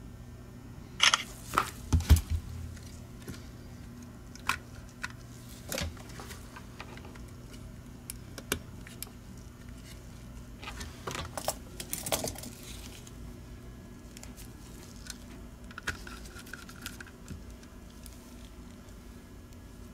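Small plastic clicks and clacks as the parts of a disassembled Logitech G Pro Wireless mouse are handled and fitted back together, with tiny screws and a screwdriver picked up and set down. Loudest is a knock about two seconds in, with another cluster of clatter about eleven to twelve seconds in.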